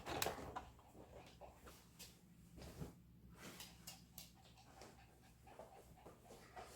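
Near silence: room tone with a low hum, one louder knock or rustle just after the start, then scattered faint clicks and rustles.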